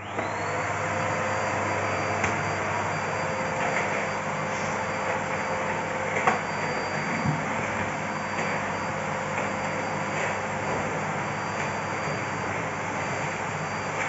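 Bosch BGS21X320 bagless canister vacuum cleaner switched on: its motor spins up with a quick rising whine, then runs steadily while the floor nozzle is worked over the floor, with a few light knocks.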